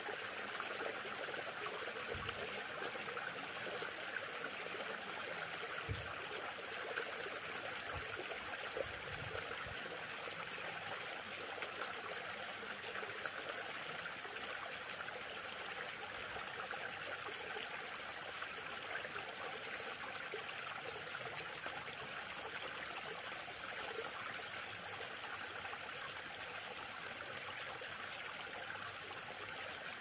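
Steady, even rush of flowing stream water, with a few faint low thuds in the first ten seconds.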